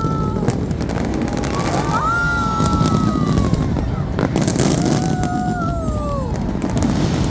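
Fireworks going off over a dense crowd din, with scattered sharp cracks. Through it run three long, high tones, each lasting a second or so and sliding down in pitch at its end.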